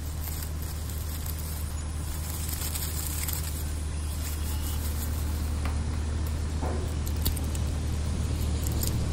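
A steady low engine hum with a noisy hiss over it, slowly getting a little louder.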